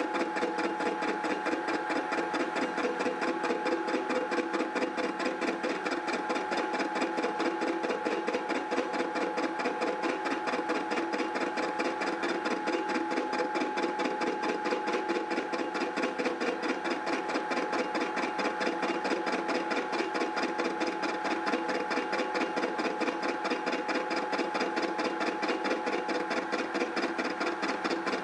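Indexable face mill cutting iron on a milling machine: a steady, fast, even pulsing as the inserts cut, over a steady high hum.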